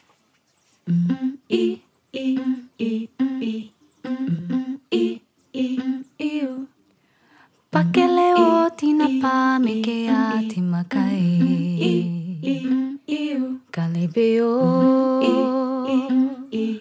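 Mostly unaccompanied vocal music: short hummed phrases broken by pauses, then about eight seconds in several layered voices come in and sing without a break.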